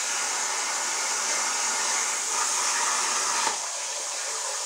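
Hypertherm plasma cutter's arc cutting steel plate with a steady hiss. About three and a half seconds in the arc cuts off with a click at the end of the cut, and the air keeps hissing on as post-flow.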